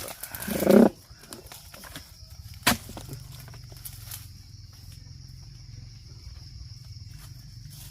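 Oil palm harvesting: a rustling swish that ends in a heavy thud just under a second in, as cut palm material drops through the fronds to the ground, then one sharp knock near three seconds. A faint steady hum and a high steady hiss lie beneath.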